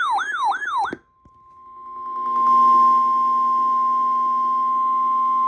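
About a second of electronic tone sweeping down in pitch, about three sweeps a second, cuts off. Then the NOAA Weather Radio 1050 Hz warning alarm tone comes in, growing louder over a second or so before holding steady, the signal that a warning broadcast follows.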